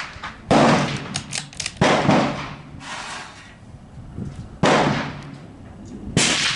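Four rifle shots, each a sharp crack with a short trailing echo, coming about 1.3, 2.9 and 1.5 seconds apart. Fainter clicks and wind noise fall between them.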